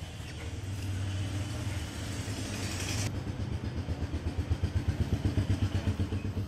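An engine running, its low hum turning into a fast pulsing of about nine beats a second in the second half. A hiss sounds over it and cuts off suddenly about three seconds in.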